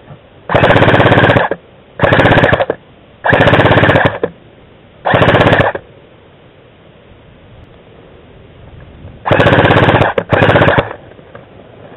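Scoped airsoft rifle close by, firing six short fully automatic bursts, each under a second, as a loud rapid rattle; two come close together near the end.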